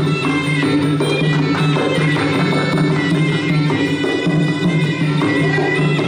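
Traditional Khmer boxing music: a sralai reed oboe playing a continuous melody over drum strokes.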